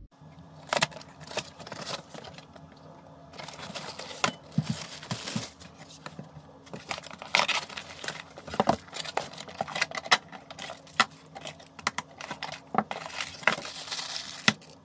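Cardboard packaging and plastic bags rustling and crinkling as items are unpacked, with scattered sharp clicks and knocks. Near the end a plastic bag of metal mounts and screws is handled.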